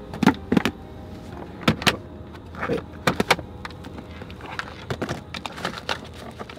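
Smartphones being put into a car's glove compartment and shuffled about: a string of sharp knocks and clatters of the hard phones against one another and the plastic compartment.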